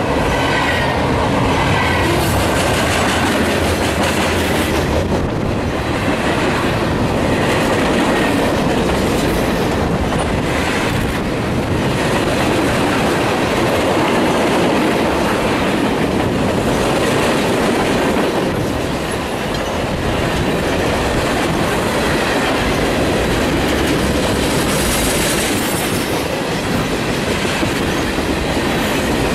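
Freight train of tank cars rolling past at close range: a steady rumble of steel wheels on the rails with clickety-clack over the rail joints. A high wheel squeal fades away in the first couple of seconds.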